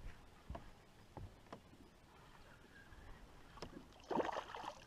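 A hooked fish splashing at the surface beside the boat near the end, a brief noisy splash. Before it, a few faint short knocks.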